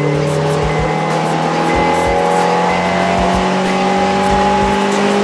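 2009 Honda Accord's engine accelerating under load through one gear, heard from inside the cabin, its pitch rising steadily, breathing through a custom dual exhaust and an Injen intake.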